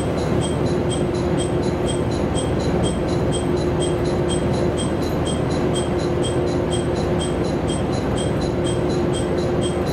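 Diesel railcar standing with its engine idling, heard from inside the cabin: a steady hum with a faint regular ticking about twice a second.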